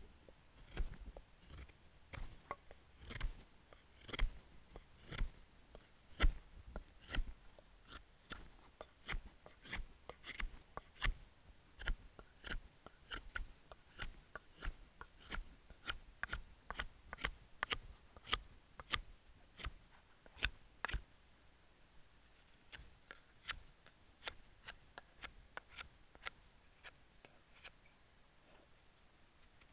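Scandi-ground O1 tool-steel bushcraft knife (LT Wright GNS) making power cuts into a stick, carving it to a point: a long run of sharp cutting strokes, about one and a half a second, with a short pause about three quarters of the way through.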